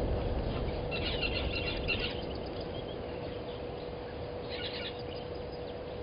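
Small birds chirping in two short bursts, about a second in and again near the end, over a low wind rumble and a faint steady hum.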